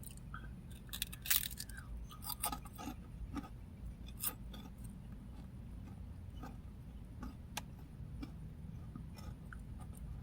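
Crunching and chewing of crunchy puffed corn snack rings: scattered crisp crackles and clicks, a few sharper ones in the first half.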